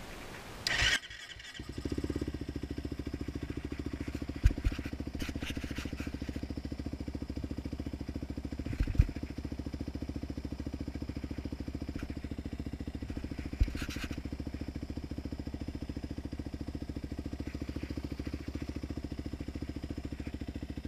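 Fuel-injected 450 quad's single-cylinder engine started with a brief burst of cranking, catching about a second and a half in and settling into a steady fast idle on its high-idle setting to warm up. A few sharp clicks sound over the idle.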